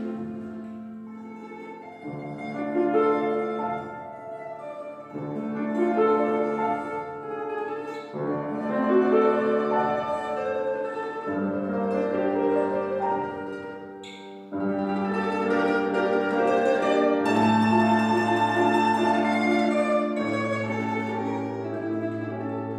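A plucked string instrument, mandolin-like, playing a slow lyrical melody in sustained notes with accompaniment beneath it, growing louder about two-thirds of the way through.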